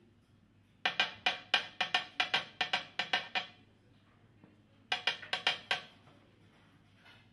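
A small metal cup holding a bundle of brush hair knocked repeatedly on a worktop: a quick run of about a dozen sharp taps, a pause, then about six more. The knocking settles the loose hairs down into the cup to give the brush head its rough shape.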